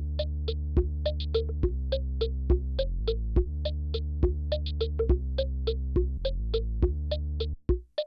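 Synthesizer music: a steady low chord under quick plucked keyboard notes, stopping shortly before the end.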